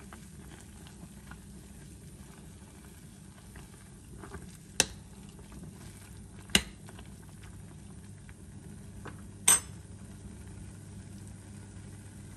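A metal spoon stirring instant noodles in broth in a stainless steel saucepan, with faint scraping and three sharp clinks of spoon on pan: two about five and six and a half seconds in, the third near nine and a half seconds.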